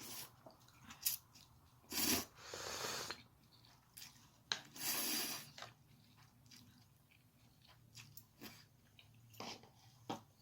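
Close-up eating sounds: chewing with scattered mouth clicks, broken by two longer noisy bursts, about two seconds and five seconds in.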